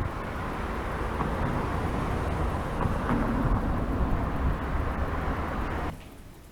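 Steady wind and rolling noise from riding a bicycle, rushing over the microphone. It cuts off abruptly near the end.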